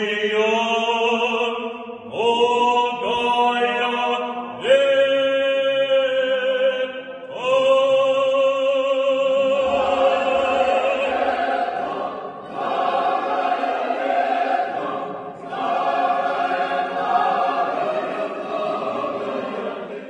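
Russian Orthodox liturgical chanting: a male voice sings long held phrases with vibrato, and from about halfway through a choir of several voices sings with it.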